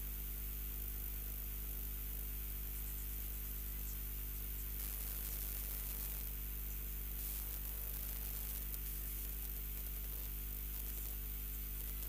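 Steady electrical mains hum with static hiss on the broadcast audio line; the hiss swells briefly about five and seven seconds in.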